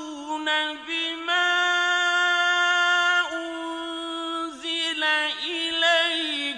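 A solo male voice reciting the Quran in the melodic mujawwad style: long held notes broken by short pauses, with a wavering, trilled ornament about five to six seconds in.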